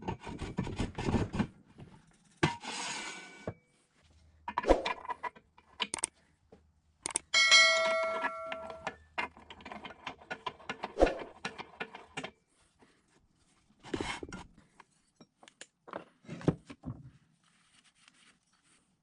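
Metal drill press parts being handled and fitted at the bench: a string of separate clinks, knocks and rubs, with one metal piece ringing out bell-like for about a second and a half near the middle.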